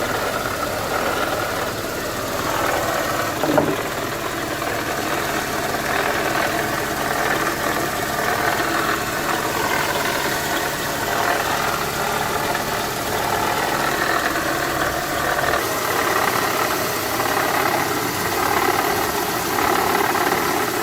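Car engine idling with a steady mechanical noise from the engine bay, which the uploader puts down to the water pump impeller blades rubbing because worn bearings have left too much play in the pump shaft. A single short knock sounds about three and a half seconds in.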